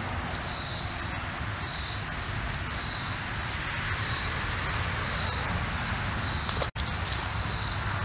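Insects calling in regular pulses about once a second, high-pitched, over a steady rushing background, with a momentary dropout in the sound near the end.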